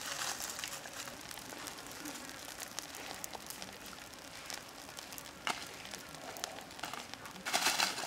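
Pig leg roasting on a stick over a wood fire: fat sizzling and embers crackling, a steady hiss full of small pops that gets louder about five and a half seconds in and again near the end.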